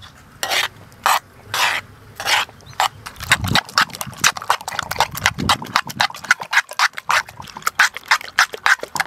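Raw egg batter with chopped onion, green chilli and tomato being stirred in a bowl, the utensil scraping and clicking against the bowl. There are a few slow strokes at first, then about three seconds in it speeds up to about four or five quick strokes a second.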